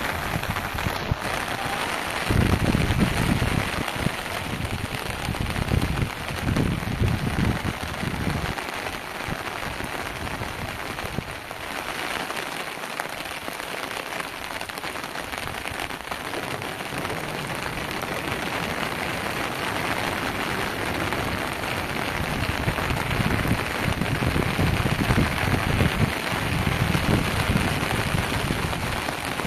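Steady hiss of heavy rain falling, with low rumbles that come and go several times.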